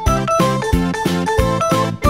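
Background music: a pitched melody over a steady beat of about three notes a second.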